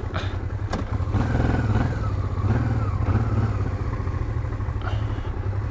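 Honda Transalp 650's V-twin engine running at low speed, a steady low rumble that picks up a little about a second in.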